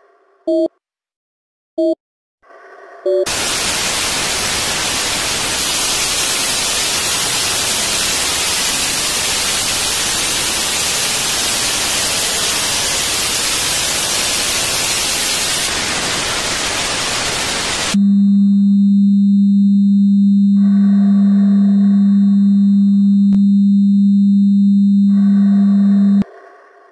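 Electronic static: a few short beeps, then a loud even hiss of white noise for about fifteen seconds. It cuts to a loud steady low hum with fainter tones fading in and out, which stops abruptly near the end.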